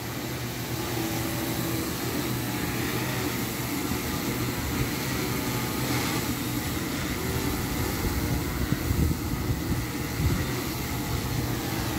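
Large multirotor drone's motors and propellers humming steadily in hover, with a couple of held tones, while gusts of strong wind buffet the microphone. The hum stays even, which the pilot takes as a sign of stable flight.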